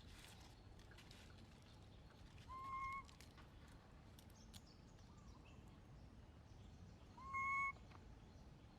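Baby monkey crying twice, two short high calls each about half a second long that rise briefly and then hold one pitch, over faint background noise.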